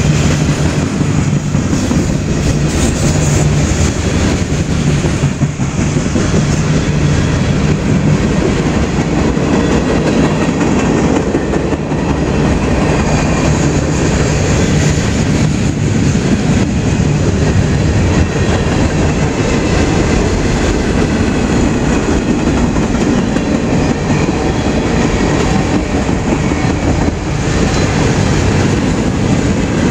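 Freight train passing at close range: steady noise of its cars' wheels rolling on the rails.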